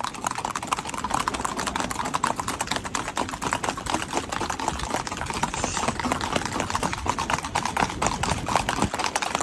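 Horse's hooves clattering on a paved road in a fast, even, rapid beat: a gaited horse ridden at a quick, short-stepping gait.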